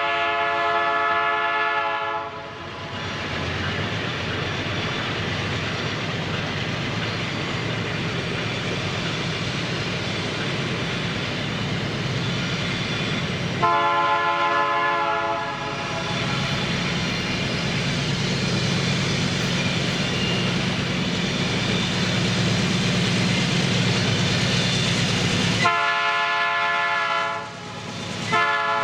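Train horn sounding three times: a blast of about two seconds at the start, another about halfway, and another near the end followed by short toots. In between, the train runs past with a steady rumble and wheel clatter on the rails.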